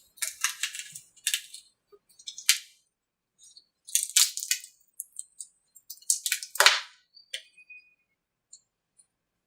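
Clusters of sharp, high-pitched clicks and cracks, four or five bursts with short gaps, as a freshly cured male mold is pried free of its female mold: the layup popping loose from the mold surface as it releases.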